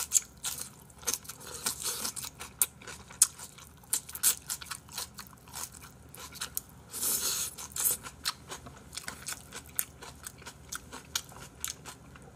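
Close-miked chewing and crunching of spicy napa cabbage kimchi (Silbi kimchi), a run of sharp wet crunches and mouth clicks, with a longer noisy stretch about seven seconds in.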